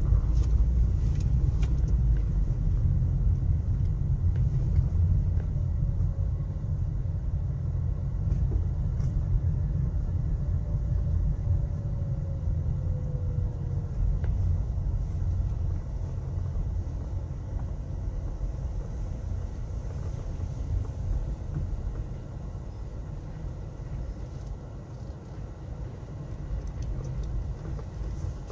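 Low rumble of a car driving, heard from inside the car, gradually getting quieter.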